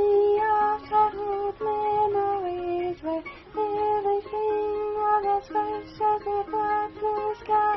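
Background music: a tune led by a plucked string instrument, its melody moving in steps of held notes.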